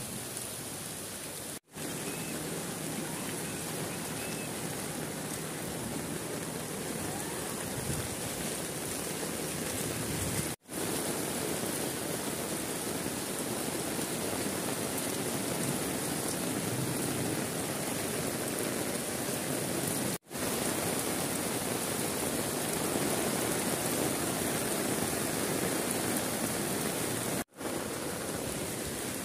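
Heavy rain pouring down in a flood, a steady, even hiss, broken four times by split-second dropouts.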